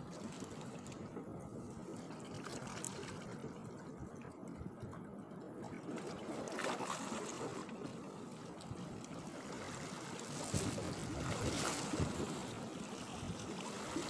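Small waves lapping and trickling at the water's edge, a steady watery wash with a few louder splashes in the second half.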